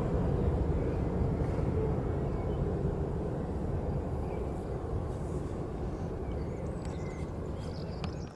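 Low, steady rumble of a Boeing 777F's twin GE90 jet engines heard from a distance after landing, slowly easing off, then fading out at the very end.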